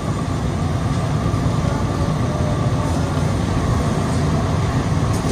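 Steady low rumble with a hiss over it from a Plane Train people-mover car running along its tunnel guideway, heard from inside the car. It is the sound of rubber tyres on the concrete track, and the level holds even throughout.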